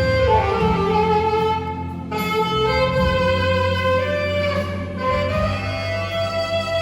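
Background music with sustained string-like melody lines over a steady bass.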